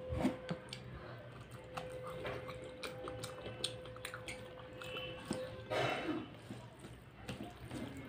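Fingers mixing dal into steamed rice on a plate: soft wet squishing with many small clicks and ticks. A louder squelch comes about six seconds in, over a faint steady hum that stops at the same moment.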